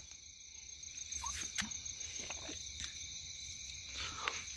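Night insects such as crickets chirring steadily in several high tones, with a few faint clicks.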